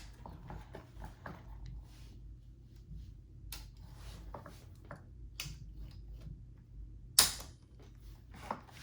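Light mechanical clicks and small clunks of a 1923 Remington Portable #2 typewriter's carriage and levers being worked by hand, with one sharper click about seven seconds in.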